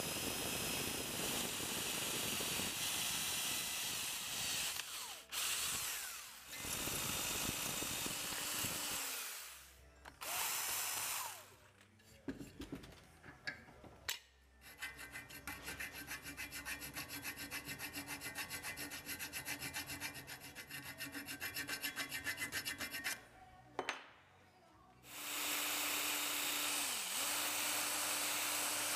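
Electric drill boring into a small aluminium block held in a vise, running in several bursts with short pauses. In the middle stretch the cut carries a fast, even rattle, and in the last burst the drill's pitch sags as the bit bites.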